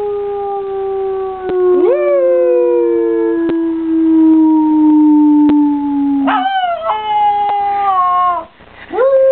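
Poodle puppy howling: long, slowly falling howls, with a second howl rising in over the first about two seconds in. A brief gap comes near the end, then a new howl sweeps up.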